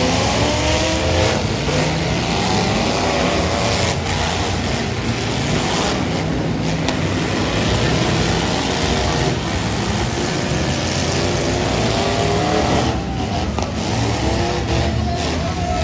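Demolition derby cars and pickups revving their engines hard, several at once, the pitch rising and falling as they push into each other in the mud, with a few sharp knocks from the vehicles colliding.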